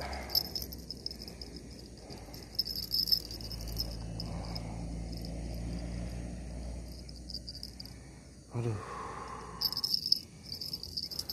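Insects trilling in a high, pulsing chorus that fades in the middle and comes back strongly near the end, over a low rumble and a few bumps from handling.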